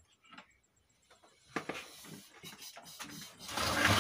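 A CRT television set being dragged and turned on a wooden workbench: a sharp knock about one and a half seconds in, then irregular knocks and scraping that build to a loud, steady rubbing near the end.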